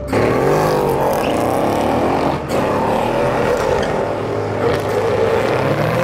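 BMW M5 F10's twin-turbo V8 accelerating hard, its engine note climbing and dropping several times as it pulls away.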